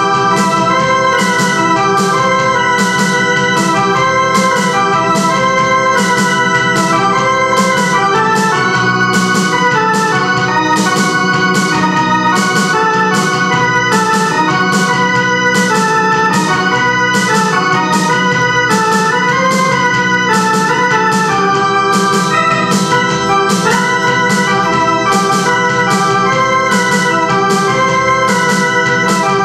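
Electronic home keyboard playing a forró tune: a moving melody over held chords and a bass line, with a steady beat throughout.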